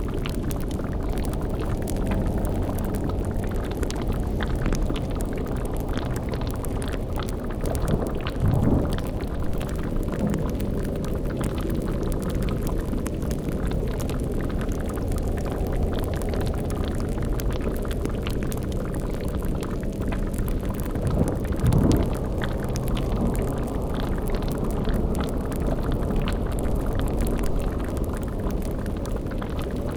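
Dark fantasy ambience mix: a steady low rumbling drone with hum-like tones under a bubbling, liquid texture, as of a boiling cauldron. It swells louder twice, about eight seconds in and again about twenty-two seconds in.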